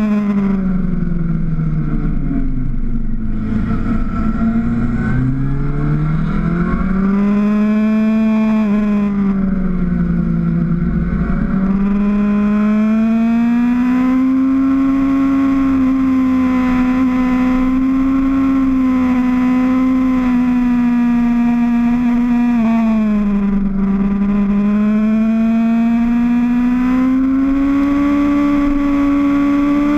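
Motorcycle engine heard from the rider's own bike, its note falling and rising smoothly as the throttle is eased and opened through the bends. It dips hard in the first few seconds, again briefly about a third of the way in and near 24 s, then climbs slowly toward the end, over a low wind rumble on the microphone.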